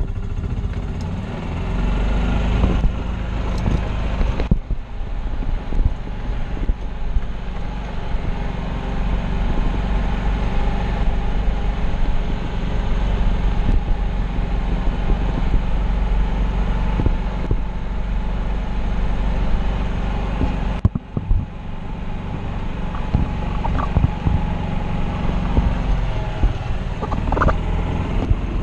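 Golf cart driving, a steady low running noise from its drive and wheels. It dips briefly about two-thirds of the way through, and a few knocks and rattles come near the end.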